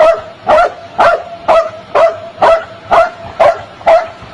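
A dog barking in a steady rhythm, about two barks a second, nine barks in all.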